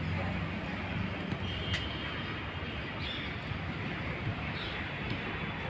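Steady outdoor background noise: an even low rumble of the kind that distant city traffic makes, with a couple of faint high chirps about three and four and a half seconds in.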